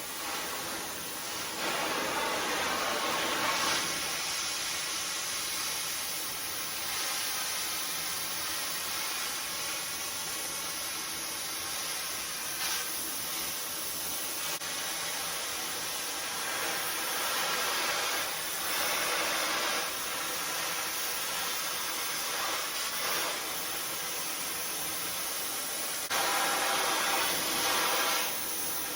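Cutting torch flame hissing steadily as it heats a bent steel maul handle clamped in a vise for straightening, swelling louder a few times.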